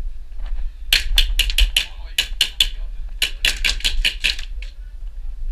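Airsoft gunfire: three bursts of rapid sharp cracks, about six a second, starting about a second in and stopping near four and a half seconds.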